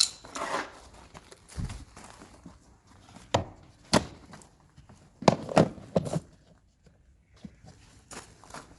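Irregular knocks and clunks of parts and tools being handled while a cover is refitted during reassembly in a car's engine bay, with a dull thump near two seconds in and the loudest group of sharp knocks about five to six seconds in.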